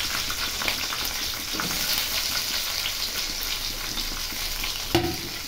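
Chopped capsicum and tomato pieces sizzling and crackling in hot oil in a kadai (Indian wok), with a short knock about five seconds in.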